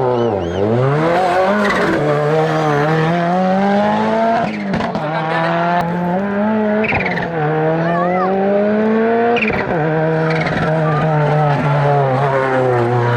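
A hillclimb competition car's engine run hard. The note dips at first, then climbs and drops back sharply with each gear change, three times. Short tyre squeals come around the middle.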